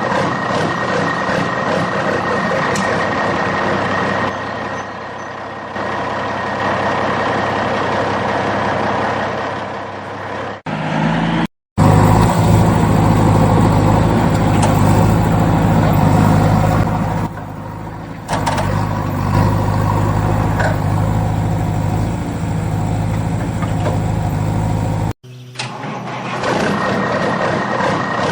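Heavy vehicle engine running steadily. The sound cuts abruptly about 11 seconds in and again near 25 seconds; the middle stretch is louder and deeper.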